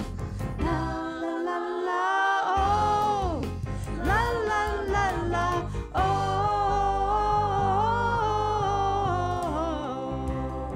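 A song with a woman's lead vocal holding long sung notes, backed by women singers, piano, bass guitar and drums. The bass and drums drop out briefly about a second in, then come back.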